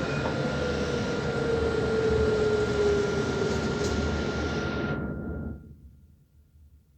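Dubai tram running: a loud rushing noise with a steady high tone and a motor whine slowly falling in pitch. It cuts off suddenly about five and a half seconds in.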